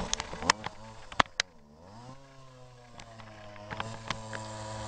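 Chainsaw engine running. Several sharp knocks come in the first second and a half, then its pitch dips and climbs back before it settles into a steady, lower-speed run.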